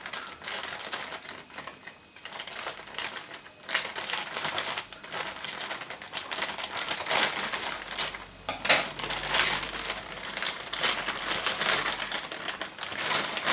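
A shipping package being opened by hand: irregular crinkling and rustling of the wrapping, broken up by many short crackles and clicks.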